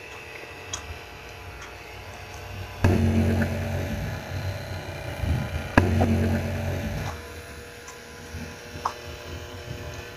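Small battery motor of a toy motorboat running with a faint, steady hum. Twice, about three and six seconds in, a click is followed by a louder, low rumble lasting a second or two.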